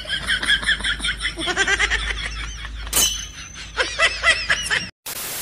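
Laughter sound effect: rapid, repeated high-pitched laughs. A burst of static hiss cuts in near the end.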